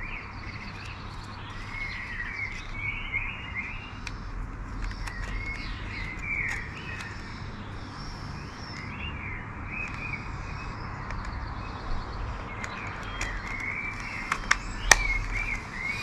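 Birds chirping and singing throughout, with a few sharp clicks near the end as the plastic gimbal protector is worked onto the drone.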